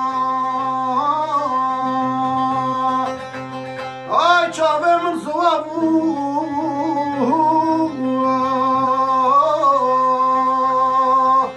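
A man singing long, held notes to his own bağlama (long-necked saz) accompaniment, with a livelier, more ornamented passage about four to six seconds in.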